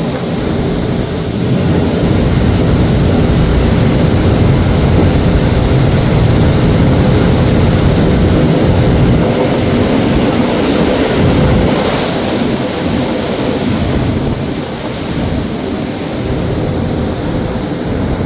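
Wind buffeting the microphone aboard a moving car ferry, over the ferry's steady engine drone and rushing water.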